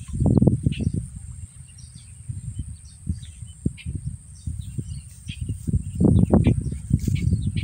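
Birds chirping outdoors over a steady high insect buzz, with loud, gusty low rumbling from wind buffeting the microphone that swells about six seconds in.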